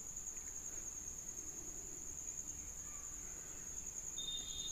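A steady, high-pitched insect trill runs throughout. About four seconds in, a second, lower trill joins it. Faint snips of scissors cutting through cotton cloth sit underneath.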